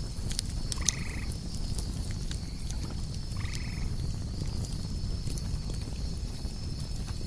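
Night nature ambience: a steady high chirring of insects with pulsing chirps about twice a second, and two short frog calls, about a second and three and a half seconds in. Scattered sharp clicks run through it over a low rumble.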